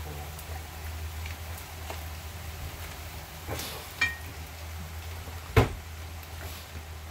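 Kitchen utensils and cookware being handled over a steady low hum and faint hiss: a ringing metallic clink about four seconds in, then a sharper knock about a second and a half later.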